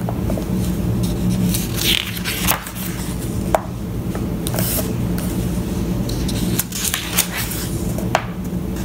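Paper pages of a large softcover book being turned and smoothed flat by hand, several short rustles and scrapes of paper, over a steady low hum.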